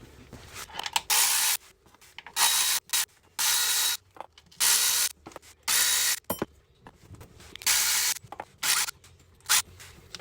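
Hand ratchet with a socket being worked back and forth to undo bolts under a transmission. The ratcheting comes in about eight short runs of rapid clicking, each about half a second long.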